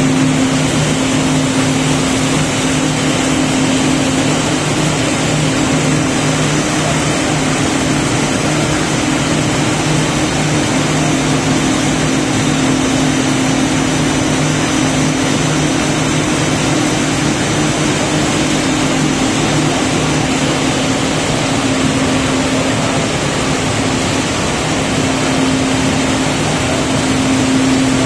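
Chocolate-production machinery running steadily on a test run: an even mechanical noise with a constant low hum and a faint high whine.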